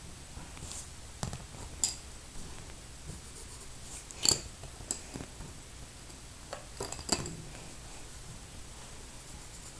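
Wooden drawing pencils clicking against one another and the table as one is put down and another picked up: a scatter of short sharp clicks, the loudest about four seconds in.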